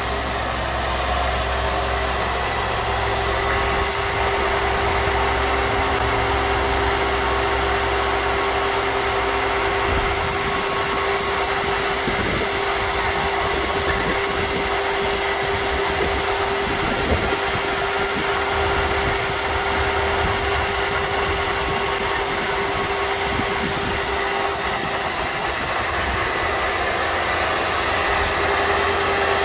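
Sharp LMV-50 vertical milling machine running with a steady motor hum. The table power feed's small motor whines up, runs and winds down twice.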